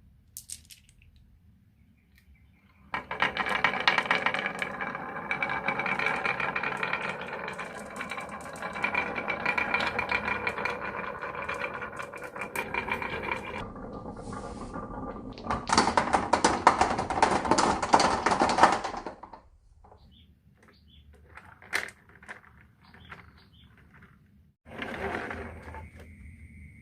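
Marbles rolling and clattering down a wooden HABA marble run: a long, continuous rattle, then a louder burst of clatter, then scattered single clicks as the marbles tumble and settle.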